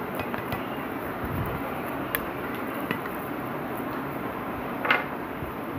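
Knife cutting into a soft banana cake on a plate: a few light clicks and, about five seconds in, one short scrape of the blade, over a steady background hiss.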